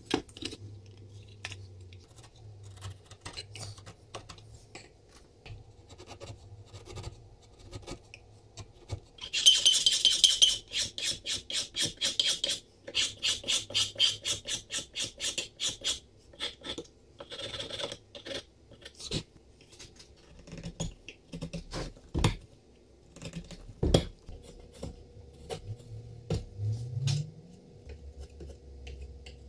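A narrow steel file rasping inside the mortise of a beech wooden plane body, in a fast run of short even strokes, about five a second, lasting some six seconds from about a third of the way in. After it come lighter chisel-paring scrapes and scattered light knocks and taps on the wood.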